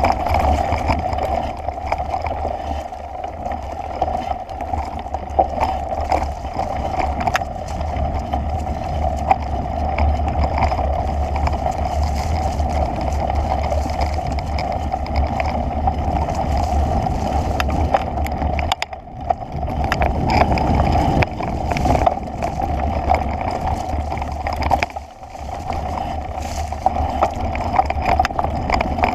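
A vehicle riding along a rough dirt trail: a steady drone with frequent rattles and knocks from the bumps, and a low rumble of wind on the microphone. It eases off briefly twice in the second half.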